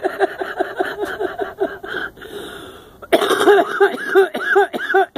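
A person's voice making short, repeated pitched vocal sounds in quick succession, about four or five a second. They ease off about two seconds in and come back louder near the three-second mark.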